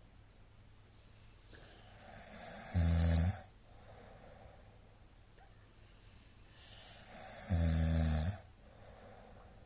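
A middle-aged man snoring loudly in his sleep: two snores about four and a half seconds apart, each a low buzzing rattle lasting under a second, led in by a rising breath.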